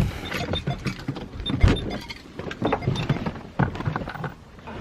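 A series of irregular knocks and clunks at uneven spacing, the loudest about one and a half seconds in.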